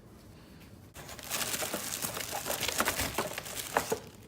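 Packaging crinkling and rustling while being handled and opened, with many small clicks and taps, starting about a second in.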